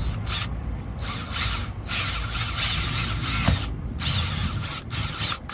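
Power drill boring a guide hole into a boat's deck floorboard, run in several starts and stops of about a second each with short pauses between.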